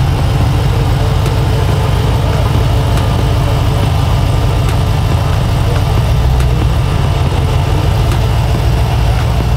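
Box Chevy's engine idling with a deep, steady low rumble.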